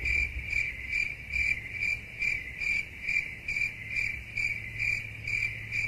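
An insect, cricket-like, chirping in an even rhythm of about two high pulses a second on one steady pitch, over a low rumble.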